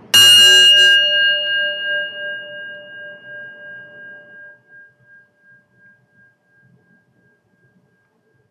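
A bell or singing bowl struck once, ringing with several clear overtones and fading slowly with a pulsing waver over about eight seconds.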